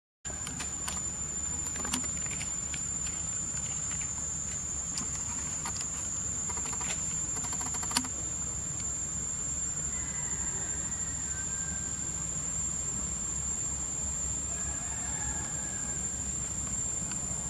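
Insects making a steady, high-pitched, unbroken drone over a low background rumble, with a few faint clicks in the first half and a sharper click about eight seconds in.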